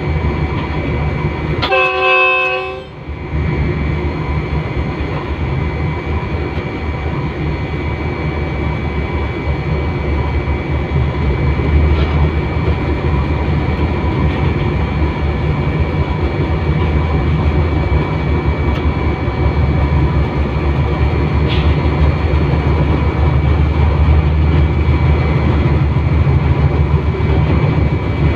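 Diesel locomotive running along the track, heard from its front end, with a steady low engine drone. About two seconds in, the horn gives one short blast of a little over a second.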